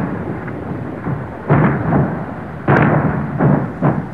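Artillery shells exploding: four heavy blasts about a second apart, each dying away in a rumble.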